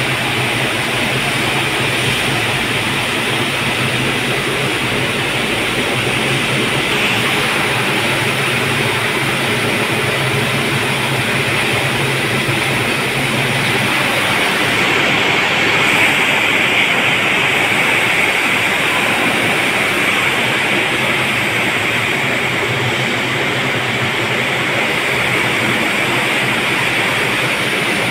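Steady, loud din of screw-making machinery running in a factory, a dense mechanical noise without a clear rhythm, with a low hum underneath that drops out about halfway through.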